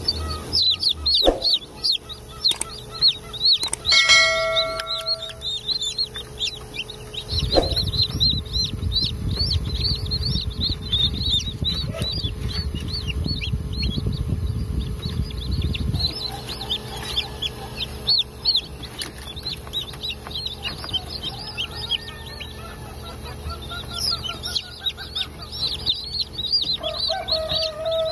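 Newly hatched Sasso chicks peeping: a dense stream of quick, high chirps. A low rumble joins in for several seconds in the middle.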